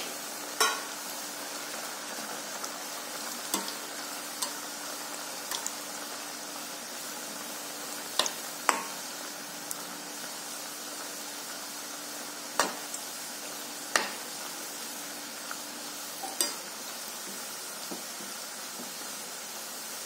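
Namak pare, pieces of maida dough, deep-frying in hot oil in a steel pan: a steady sizzle. A perforated metal skimmer stirring them clinks against the pan several times.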